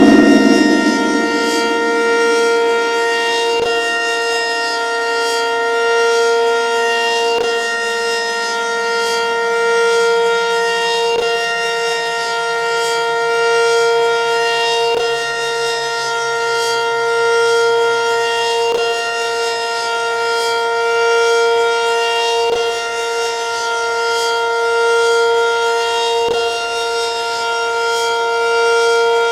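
Federal Signal 500DHTT outdoor warning siren sounding a steady tone, its loudness swelling and fading every few seconds. A fainter lower tone slides down in pitch over the first fifteen seconds or so, then holds.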